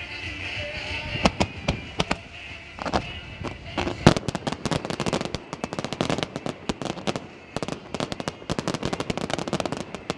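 Fireworks display: scattered bangs, one loud report about four seconds in, followed by a dense run of rapid crackling reports.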